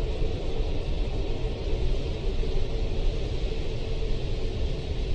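Steady low rumble and hiss of a Boeing 737 heard from inside the passenger cabin during pushback, with a faint steady hum running through it.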